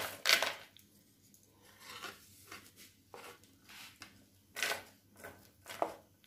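Roasted nuts and then chopped onion scraped off a ceramic plate into a plastic bowl with a steel spoon and a wooden spatula: light scrapes and clicks, with a few sharper knocks near the start and about four and a half seconds in.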